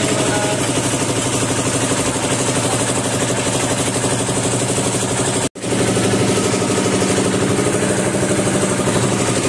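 An engine idling steadily with a fast, even pulse. It drops out for a split second just past halfway, then carries on unchanged.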